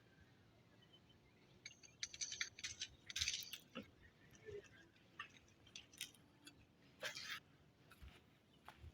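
Faint scattered clinks and scrapes of hard objects, bunched about two to three and a half seconds in and again about seven seconds in.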